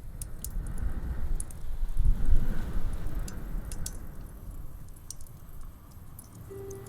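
Wood fire crackling in a fireplace: scattered sharp pops and snaps over a low rumble of the flames that swells about two seconds in. A soft steady musical tone comes in near the end.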